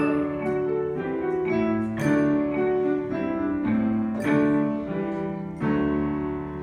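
Closing bars of a children's choir anthem with piano and marimba: a run of short notes, then a held final chord about five and a half seconds in that begins to die away.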